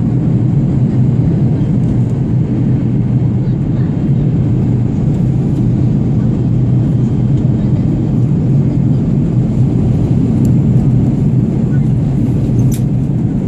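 Airplane in flight: a steady low rumble of engines and rushing air, even throughout, with a faint click near the end.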